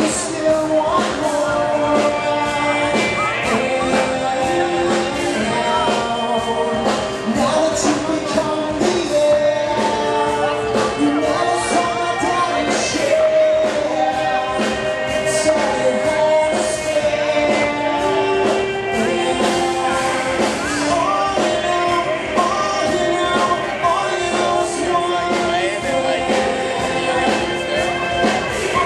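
A rock band playing live, with a singer's voice carrying the melody in long held notes over the band.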